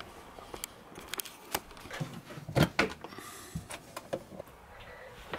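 Rummaging in a storage cupboard: a run of scattered knocks and clicks, the loudest a sharp knock a little over two and a half seconds in, with a brief rustle just after three seconds.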